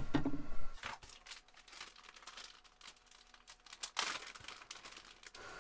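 Plastic food packaging crinkling and rustling as it is handled, with a sharper, louder rustle about four seconds in. Near the end the van's heater starts up with a steady hum.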